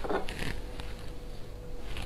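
A brief soft rustle in the first half second, then low handling noise with a faint steady hum.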